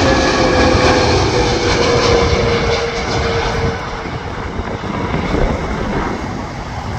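Jet engines of a British Airways Airbus A320-family airliner on final approach with its gear down, passing low overhead. A whine falls slowly in pitch as it goes by, and the sound eases off slightly after about three seconds.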